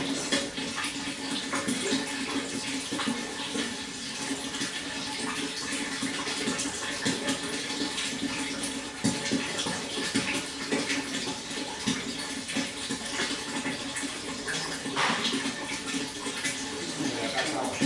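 Water flowing and splashing steadily, full of small irregular splashes and bubbles, over a steady low hum.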